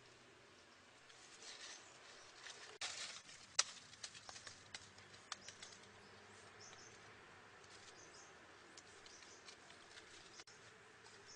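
Dry leaf litter and twigs rustling and crackling as they are handled, with a cluster of sharp clicks and snaps about three to five seconds in; a few faint, short high chirps later.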